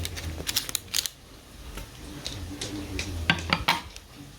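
Kitchen utensils knocking against dishes: a quick cluster of sharp clicks in the first second, and another cluster about three seconds in.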